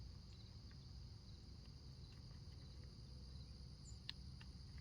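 Faint, steady high-pitched insect chorus, like crickets, with a few soft clicks; one is a little sharper about four seconds in.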